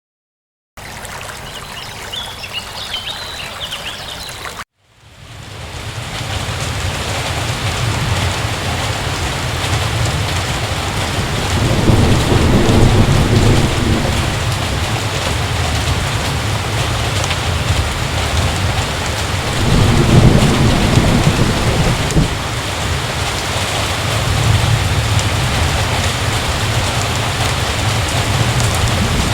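Heavy rain pouring steadily, with two low rolls of thunder, about halfway through and again about two-thirds in. It opens with a short, quieter stretch that cuts off abruptly, and the rain fades in just after.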